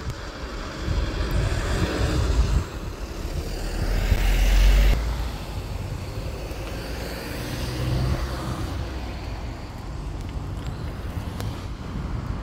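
Road traffic crossing the level crossing: cars drive past with tyre and engine noise that swells and fades several times, loudest about four to five seconds in.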